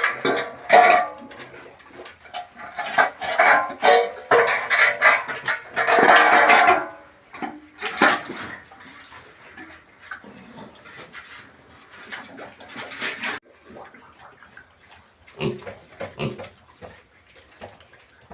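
Pigs squealing and grunting. The loud, harsh cries fill the first seven seconds, then a few low grunts follow near the end.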